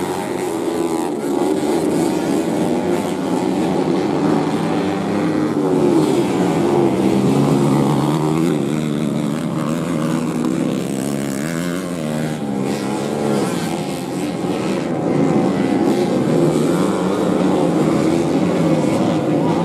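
Engines of several stock-class underbone (bebek) motorcycles built for grasstrack racing, revving up and down continuously as they race on a dirt track. Several engine notes overlap, each rising and falling in pitch with throttle and gear changes.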